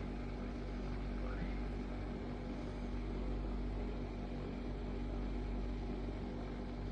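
Small battery-powered portable fan running steadily: an even whir with a constant low hum.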